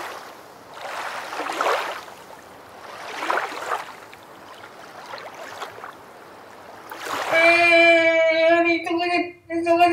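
Breathing through a snorkel: hissing breaths in and out, about one every one and a half to two seconds. About seven seconds in, a loud steady held note with many overtones starts, cutting out briefly twice near the end.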